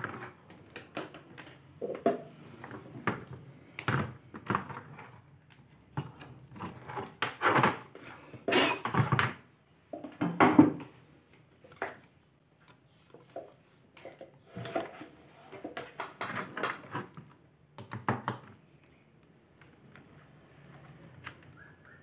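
Scattered clicks, taps and knocks of hands handling tools and meter test probes on a washing machine's control board, with the loudest clatter about ten seconds in.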